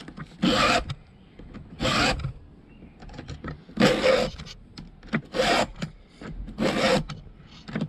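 Stihl file guide pushed across a chainsaw chain, the round file sharpening a cutter tooth while the flat file rides over the raker: five filing strokes about a second and a half apart.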